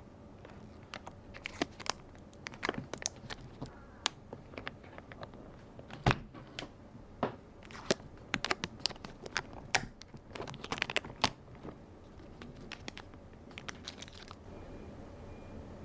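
Irregular clicks, taps and light crinkling of a full-sized mechanical keyboard and its packaging being handled, thickest in the middle and thinning out near the end.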